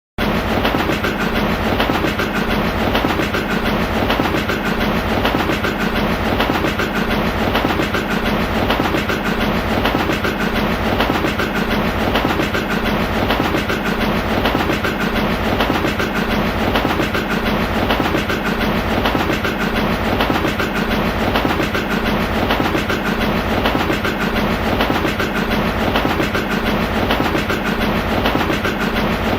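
Train sound effect: a train running steadily along the track with an even, repeating clickety-clack rhythm. It starts abruptly out of silence right at the start.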